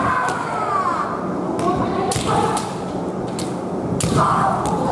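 Kendo fighters' kiai shouts, a long one falling in pitch in the first second and another about four seconds in, with several sharp cracks of bamboo shinai striking and clashing.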